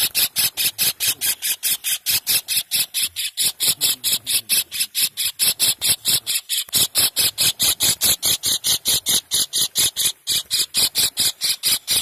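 Kingfisher calling: a long run of loud notes repeated evenly about five times a second, with a few brief breaks.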